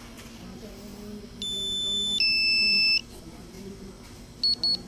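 Drone remote controller sounding warning beeps: a beep about a second and a half in steps into a louder two-note beep lasting about a second, then a quick pair of short high beeps near the end. The alert sounds while the drone has weak signal and is being sent back home.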